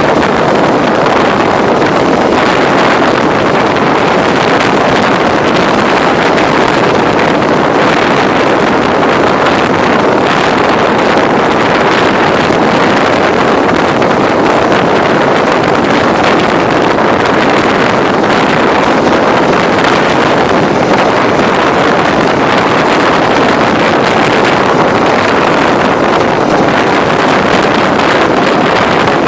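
Steady rush of wind on the microphone over the rolling noise of a passenger train running at speed, heard from beside the carriage.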